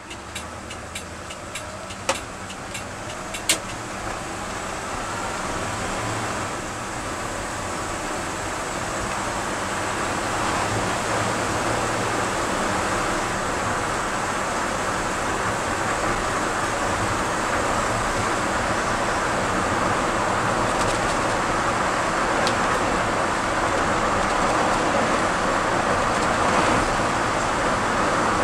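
A 1979 Ford F-250 pickup heard from inside the cab as it pulls away and speeds up, its engine and road noise building over the first ten seconds, then settling into a steady cruise with tyre and wind noise. A couple of sharp clicks in the first few seconds.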